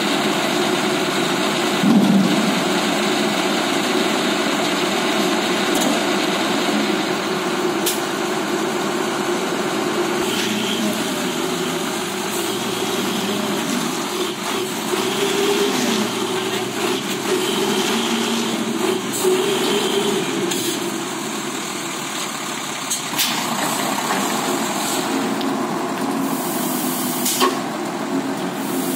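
Crane truck's diesel engine running steadily at low speed as the truck creeps forward, its pitch shifting a little, with a few sharp clicks along the way.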